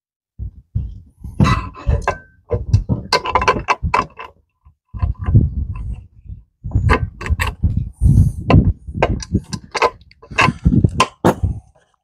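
1966 Mustang brake pedal and steel pedal support being fitted together by hand: the pivot shaft, bushings and washers going in with an irregular string of metal taps, clinks and knocks.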